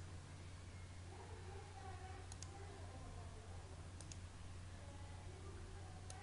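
Computer mouse clicking a few times, each click a quick pair of ticks, about two seconds apart, over a steady low electrical hum.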